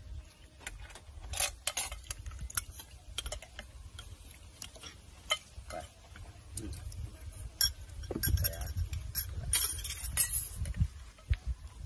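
A ladle and spoons clinking and scraping against glass bowls as soup is served out and eaten, with many scattered sharp clinks.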